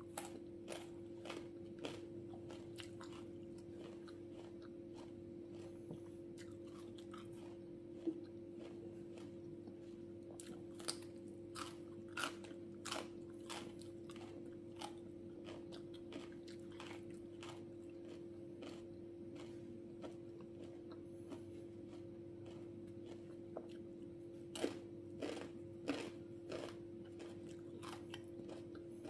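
Biting and chewing crisp raw cucumber: irregular crunches that come in clusters, over a steady low hum.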